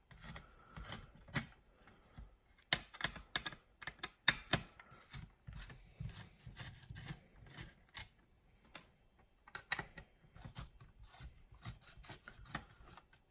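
Small screwdriver turning small screws out of a circuit board mounted in a plastic case, with irregular light clicks and ticks of metal on metal and of screws being handled and set down.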